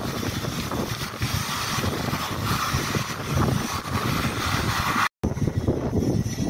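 Boeing P-8A Poseidon's twin CFM56 turbofan engines running as it taxis, a steady jet rush mixed with wind buffeting the microphone. The sound drops out for an instant about five seconds in, then resumes with less hiss.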